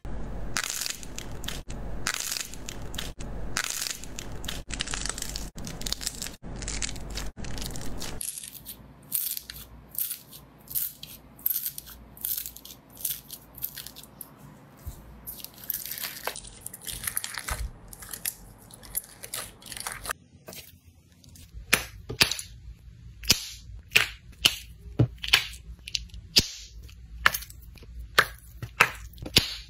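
Hands squeezing and working slime: dense sticky squelching and clicking at first, then quieter crackling as fingers push through slime packed with foam beads. Later comes a regular run of loud, sharp sticky pops, a little more than one a second.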